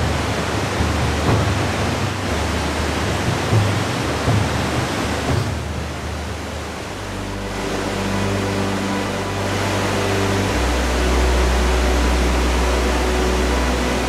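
Rushing whitewater of an icy river, a steady loud roar. About halfway through, background music of sustained low drone-like tones comes in and carries on over the water noise.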